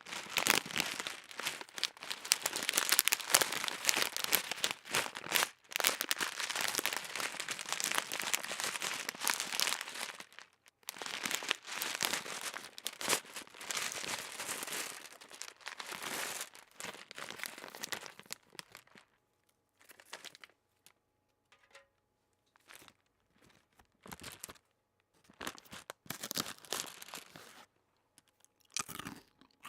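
Close-miked crunchy eating with dense crinkling and crackling for about the first ten seconds, then patchier bursts that thin out to scattered short crunches after about eighteen seconds.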